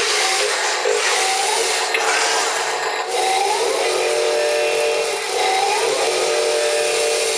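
Wheel loader at work scraping and levelling loose soil: a steady machine drone with short rising whines every couple of seconds, over a gritty, rasping scrape.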